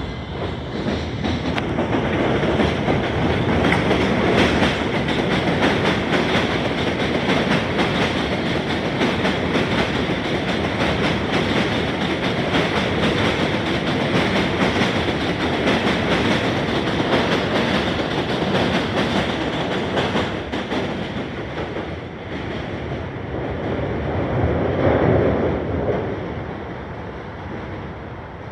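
An NYC subway 1 train of R62A cars passes on an elevated steel structure: a loud, sustained rumble with the clatter of its wheels over the rails. It swells once more near the end and then fades as the train moves away.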